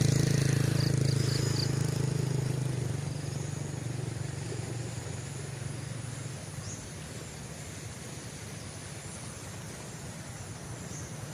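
A vehicle engine hum fading steadily over about six seconds as it moves off, leaving a faint steady outdoor background.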